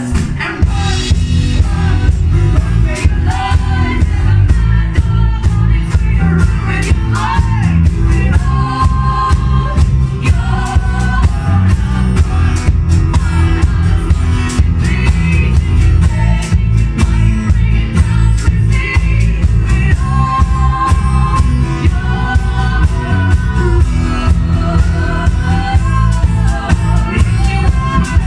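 A band playing live with a singer: a sung melody over heavy bass and a steady drum beat.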